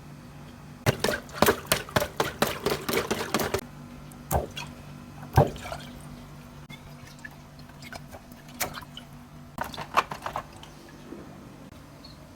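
Water dripping and splashing in quick, irregular drops: a dense run of drops about a second in, then scattered single drops, over a faint steady hum.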